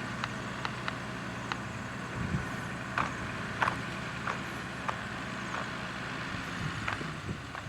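Road roller's diesel engine running steadily, with scattered sharp clicks and ticks; the engine note fades out about six seconds in.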